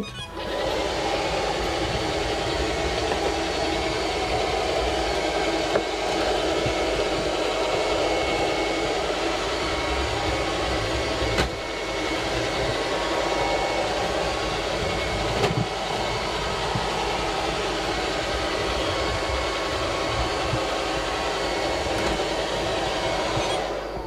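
SilverCrest SSR 3000 A1 robot vacuum cleaner starting up in automatic mode and running steadily: the whir of its suction fan and brushes, with occasional brief knocks. It stops at the very end.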